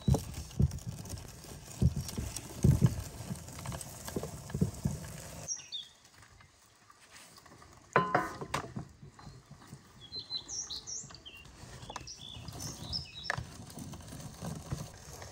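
Hand-cranked nut grinder crunching walnuts for the first five seconds or so, a run of uneven low knocks and thuds. About eight seconds in comes a short ringing clatter as a pan is handled, and birds chirp in the background near the end.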